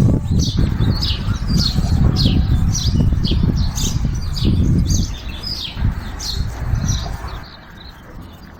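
Small birds chirping repeatedly in short, quick falling notes, about two a second, over a heavy low rumble that eases off near the end.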